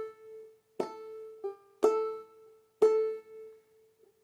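Banjolele tuned G-A-E-A, its first string struck downward with a fingernail in clawhammer style: the same single note three times about a second apart, each ringing out and fading, with a quieter, higher note between the first two.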